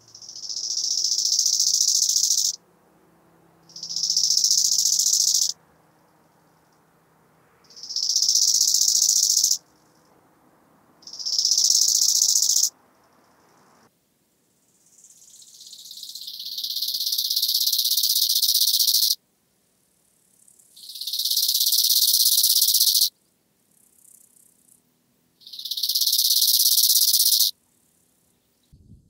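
Bow-winged grasshopper (Chorthippus biguttulus) stridulating: seven high-pitched rasping song phrases, each swelling in loudness over about two seconds and then cutting off sharply, with short pauses between them; the fifth phrase is longer, at about four seconds.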